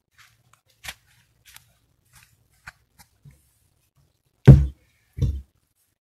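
Logs being handled and set onto a log wall: a few light wooden knocks and clicks, then two heavy wooden thuds about two-thirds of a second apart near the end, the first the louder.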